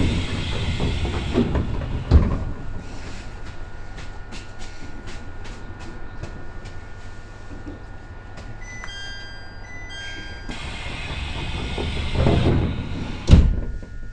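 Japanese commuter train at a station: a steady low rumble from the train, two spells of loud air hiss, and two heavy thuds, about 2 s and 13 s in, typical of the train's sliding doors. A short run of steady high tones sounds a little after the middle.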